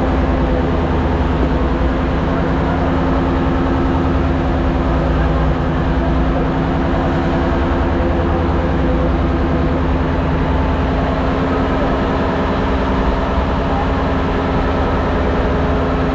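A fishing boat's engine running steadily, a constant drone with a deep rumble underneath.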